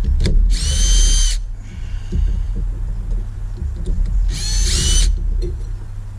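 Brushed electric trolling motor on the bench, switched on in two short bursts of high whine, each under a second, rising in pitch as it spins up, with knocking and handling noise between.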